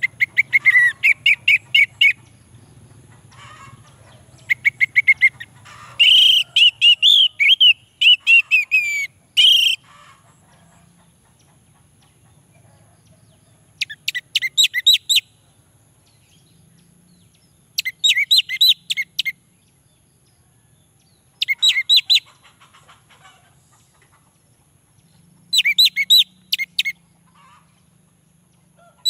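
Male orange-headed thrush singing: phrases of quick, high, rapidly repeated notes, nearly continuous through the first ten seconds, then shorter phrases of about a second each every three to four seconds.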